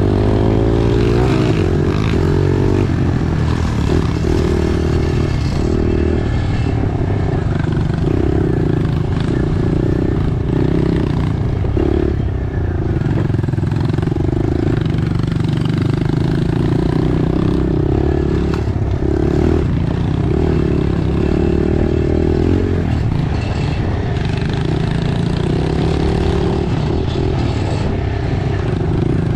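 Pit bike engine running under way on a dirt trail, the revs repeatedly rising and falling as the throttle is opened and closed, heard close up from on the bike, with some rattling from the bike.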